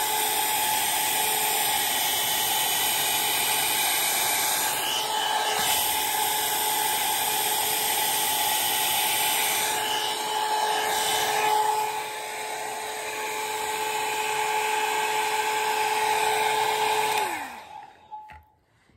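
Handheld hair dryer blowing with a steady whine while hair is brushed straight, then switched off near the end, its motor pitch falling as it spins down.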